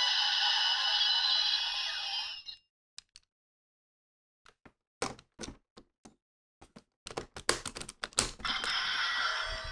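Electronic sound effect from a DX Melon Energy Lockseed toy, playing through its small speaker and cutting off about two and a half seconds in. Then a run of sharp plastic clicks and snaps as the lockseed is fitted into a DX Genesis Driver belt and locked. Near the end the driver starts its own steady electronic standby sound.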